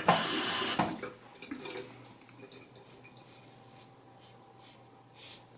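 Water running from a tap for about a second, as when a razor is rinsed at the sink, then a few faint short scraping strokes of a single-blade razor on the neck.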